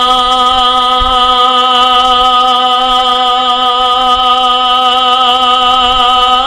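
A man singing a Bangla gojol, holding one long note at a steady pitch with a slight vibrato.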